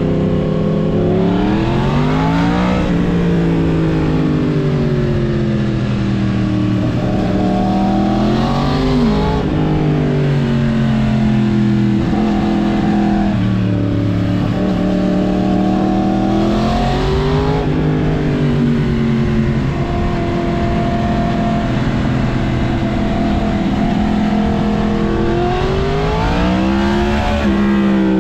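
Yamaha MT-10's crossplane inline-four running through a full Mivv exhaust while being ridden. Its pitch climbs and falls again and again as the rider accelerates and backs off through the revs.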